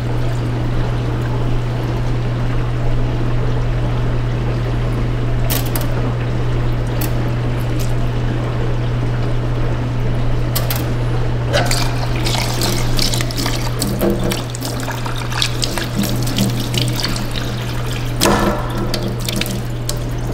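Long-grain rice being rinsed by hand in a glass measuring cup over a stainless steel sink: water sloshing and splashing, with bouts of splashes in the second half and the milky rinse water poured off into the sink near the end. A steady low hum runs underneath.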